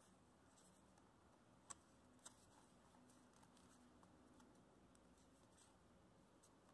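Near silence: hands folding and creasing a sheet of white paper make a faint rustle, with two soft ticks about two seconds in.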